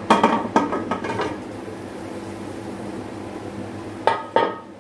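Aluminium pressure cooker lid being turned and lifted off, with about a second of metal scraping and clanking. A steady low hum follows, then two sharp metal knocks near the end.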